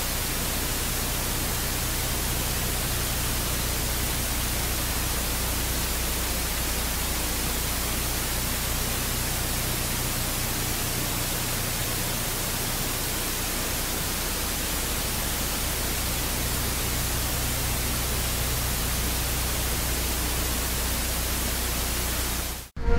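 Airbus A400M turboprop engines running steadily while the aircraft taxis: an even, loud hiss with a low hum underneath. The sound cuts off abruptly just before the end.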